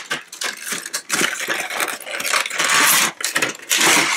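Cardboard retail box being opened by hand: flaps and card scraping and sliding against each other, with many small clicks and rustles and a longer sliding scrape in the middle.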